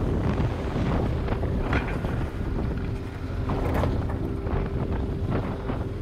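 Motorcycle riding along, its engine running under heavy wind noise on the microphone.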